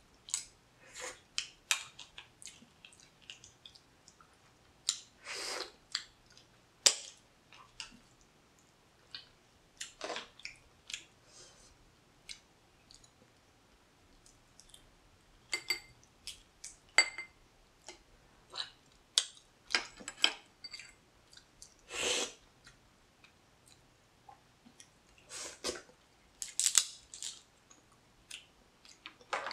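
A person eating blue crab close to the microphone: wet smacks, sucks and chewing at the crab meat, with sharp clicks of shell and a metal spoon at irregular moments. Two longer slurps stand out, one about five seconds in and one about twenty-two seconds in.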